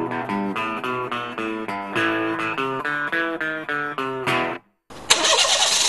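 Short opening jingle of quick plucked electric-guitar notes, stopping about four and a half seconds in. After a brief gap, a car engine starts to be heard near the end, running rough with a misfire.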